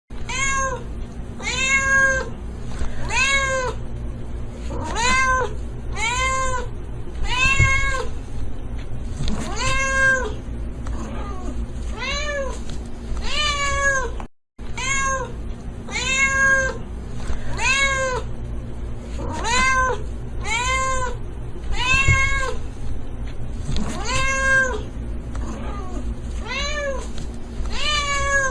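A domestic cat meowing over and over, about one meow a second, each meow rising and then falling in pitch, over a steady low hum. The run of meows cuts out briefly about halfway and then starts again.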